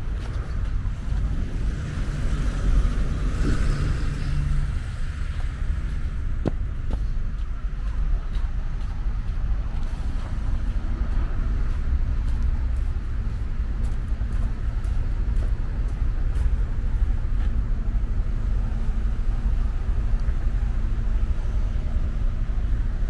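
Road traffic on a slushy winter street: a car passes about three seconds in, over a steady low rumble of traffic.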